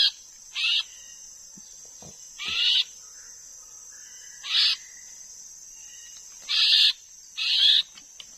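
A young male white-rumped shama, freshly caught on bird lime, gives six short harsh calls spaced a second or two apart. A steady high insect drone runs underneath.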